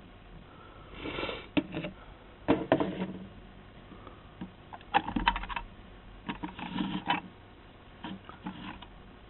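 Small plastic toy washing machine being handled: five short, irregular bouts of light clicking and rattling.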